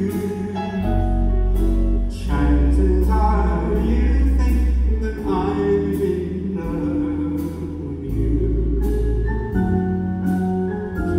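A man singing live with vibrato over a big band of saxophones, brass, piano and bass, with a steady beat.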